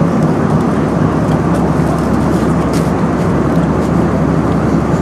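Steady airliner cabin noise: the even hum and rush of jet engines and airflow heard inside a passenger plane's cabin.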